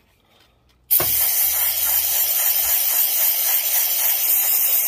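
A loud, steady hiss that starts suddenly about a second in, out of near silence.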